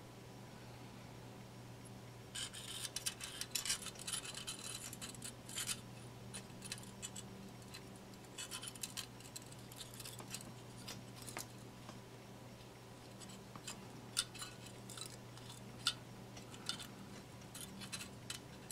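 Faint small clicks and light scraping of thin porcelain petal fragments being handled and pressed into place by fingers. They come in a dense cluster from about two to six seconds in, then as scattered single clicks, over a steady low hum.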